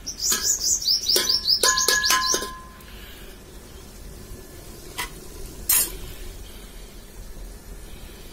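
A steel ladle stirring and knocking against an aluminium cooking pot, a few sharp clinks that ring briefly in the first two and a half seconds, with two more knocks about five seconds in. Over the first clinks a small bird gives a fast run of high, falling chirps.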